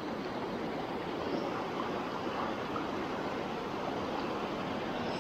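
Shallow, fast river water rushing over rocks through a riffle: a steady, even rush.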